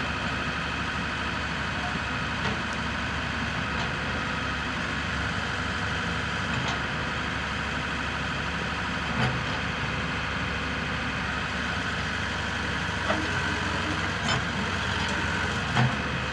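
Link-Belt crawler excavator's diesel engine idling steadily, with a few short knocks in the second half.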